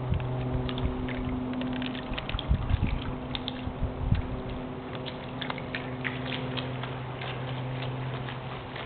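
Battery-powered RC model boat's electric motor humming steadily as the boat runs on the water, with scattered small clicks and ticks and a few low thumps about three to four seconds in.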